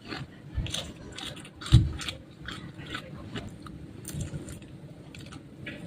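Close-miked eating sounds: crunchy chewing and biting, a quick run of crisp clicks with a heavy low thump a little under two seconds in.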